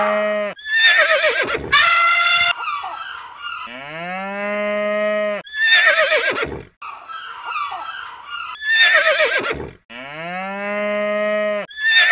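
Recorded cow moos, long low calls about four seconds in and again near the end. Shorter, higher-pitched animal calls come between them in a repeating sequence.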